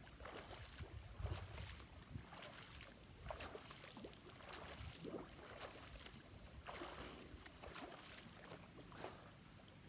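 Faint, repeated splashing of a swimmer's strokes in pond water, coming irregularly about once or twice a second.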